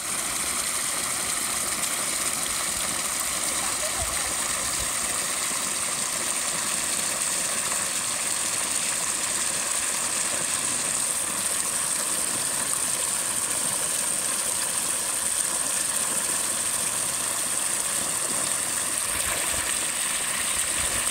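Irrigation water gushing from a plastic pipe into a woven bamboo basket, churning and splashing in a steady, unbroken rush.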